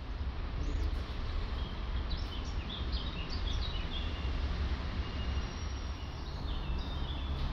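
Small birds chirping in short high calls, a cluster about two to three and a half seconds in and another near the end, over a steady low background rumble.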